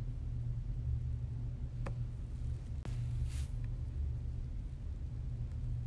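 Steady low hum in the background of the recording. A faint click comes about two seconds in, a sharper click near three seconds, and a brief high hiss just after it.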